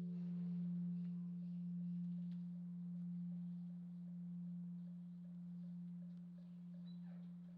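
Korean Buddhist temple bell (beomjong) dying away after a stroke: a single low hum fading slowly and pulsing in loudness about once a second.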